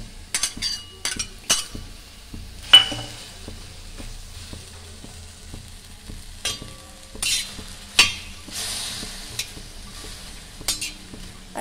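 Onion wedges dry-roasting on a hot flat metal pan with a faint sizzle, while a metal spatula scrapes and clacks against the pan as they are stirred; the sharpest clacks come about three seconds in and again about eight seconds in.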